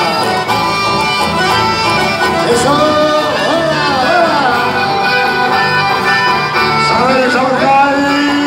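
Live band playing accordion-led dance music at a steady beat.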